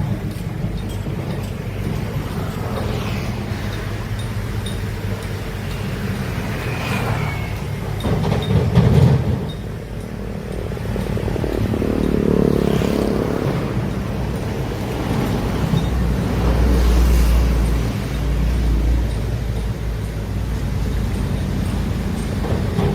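Heavy diesel earthmoving machinery, such as large excavators, running with a steady low engine rumble. The engine load rises and falls, with louder surges about nine, twelve and seventeen seconds in.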